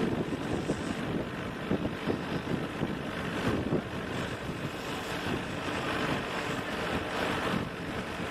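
Small two-stroke racing kart engines running as junior karts lap the circuit, a steady rough buzz.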